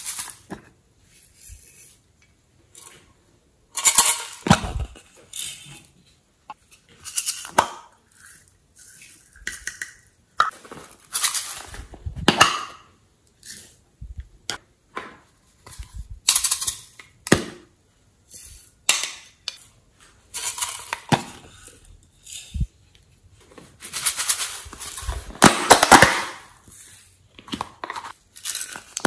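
Plastic cosmetic containers clicking and tapping against a glass dish as glitter, sequins and eye shadow are shaken and knocked out onto slime. The sound is irregular clinks and short rattling bursts with pauses between them, the longest and loudest near the end.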